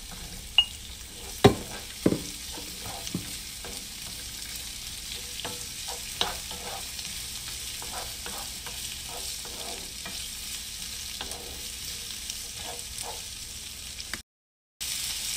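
Chopped tomatoes and onions sizzling in oil in a nonstick frying pan, stirred with a wooden spoon that knocks lightly against the pan. There are a few louder knocks in the first couple of seconds as the tomatoes are scraped in. The sound drops out for about half a second near the end.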